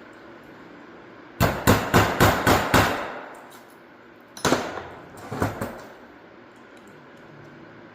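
Metal hammer blows driving a slotted roll pin out of a Toyota Celica differential: a quick run of about six strikes about a second and a half in, then three more spaced strikes a few seconds later.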